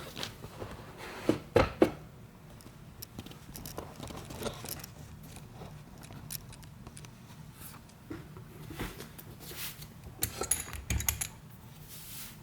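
Small metal tool clicking and scraping against the circlip on the back of an Abloy disc-detainer lock, working to pry it off. The sharp clicks come in short clusters, a pair about a second and a half in and several about ten and a half seconds in, with light scraping between.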